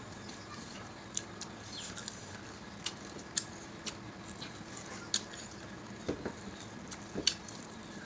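Eating sounds of people eating rice and chicken curry with their hands: scattered wet mouth smacks and chewing clicks, with soft taps of fingers and food on the plates, over a faint steady background hum.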